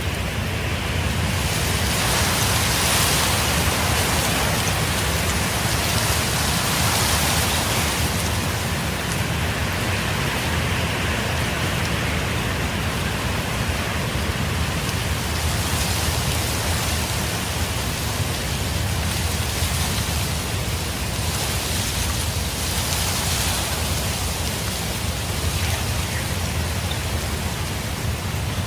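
Strong wind in a sandstorm, with a steady low rumble and a high hiss of blowing sand that swells in gusts every few seconds.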